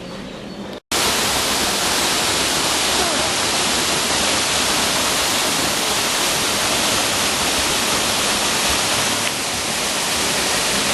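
Waterfall: a steady, loud, even rush of falling water. It cuts in abruptly about a second in, after a brief quieter stretch.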